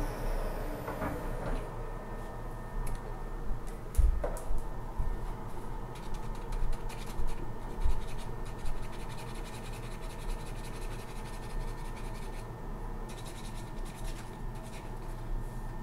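A wood lathe's whine falls in pitch as it spins down within the first second. A couple of dull knocks follow as the workpiece is handled, then short, irregular scratching from hand work.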